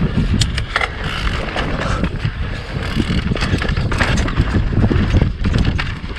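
Mountain bike rolling along a dirt trail: steady rumble of tyres and wind on the microphone, with frequent sharp clicks and rattles from the bike over rough ground.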